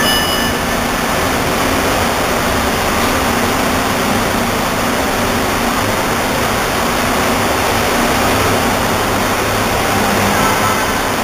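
Rubber-tyred KL Monorail train pulling into the station: a steady rushing noise with a low electric hum that grows stronger near the end as the train comes close.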